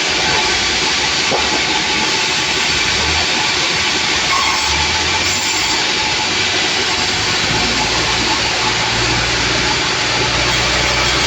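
Sawmill machinery running: a loud, steady noise with a low hum that rises and falls slightly.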